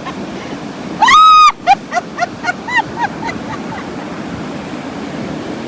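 A gull calls: one loud, high cry about a second in, followed by a run of short repeated notes that fade away. Steady surf washes underneath.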